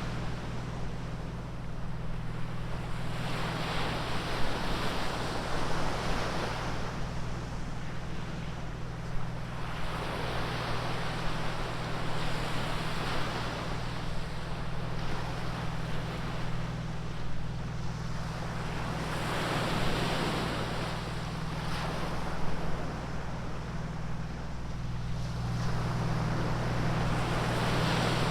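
Ocean surf: waves breaking and washing up the beach, swelling and fading every three to four seconds, over a steady low rumble.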